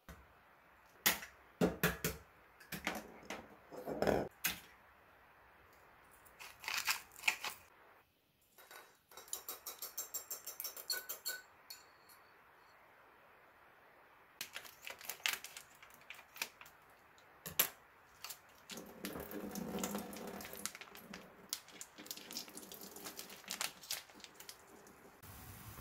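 Kitchen prep sounds: a plastic container knocked and set down on a table, then metal chopsticks beating eggs in a glass measuring cup as a quick, even run of light clinks. Near the end come wet squeezing and handling sounds as fried tofu is wrung out over a sink.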